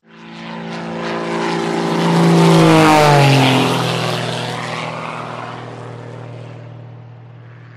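Propeller airplane flying past: the engine note swells, is loudest about two and a half seconds in, then drops in pitch as it passes and slowly fades away.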